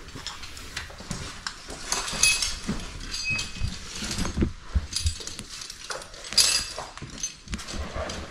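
Someone scrambling up a rocky slope on a rope: irregular scrapes and knocks of boots and hands on rock and gravel, with short metallic clinks of climbing hardware.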